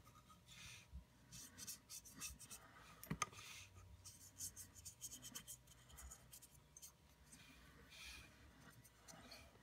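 Faint, repeated scratching strokes of a small wet paintbrush worked over a plastic model tank turret, with a sharper click about three seconds in.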